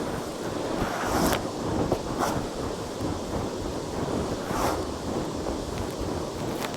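Vacuum cleaner running and sucking up dirt and grit, a steady rushing noise with a few short crackles as debris goes up the nozzle.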